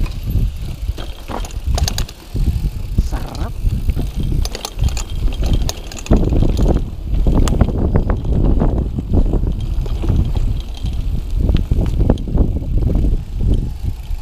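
Mountain bike rolling fast down a dirt and rocky trail: a heavy, continuous rumble of tyres and frame over rough ground, full of sharp clicks and rattles from the bike's parts.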